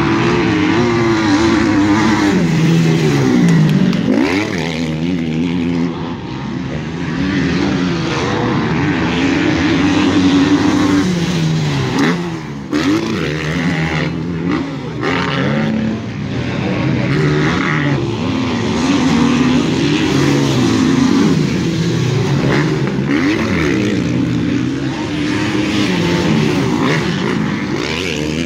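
Several motocross bikes racing around a dirt track, their engines revving up and dropping off again and again as they go through the gears, jumps and corners, so the pitches overlap and keep rising and falling.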